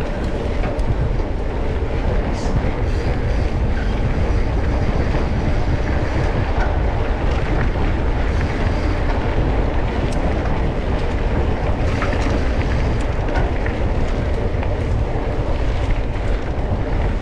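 Off-road trail vehicle on the move: a steady rumble of engine and rattling.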